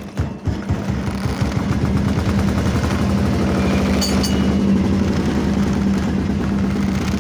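A fishing boat's diesel engine running with a fast, steady chugging.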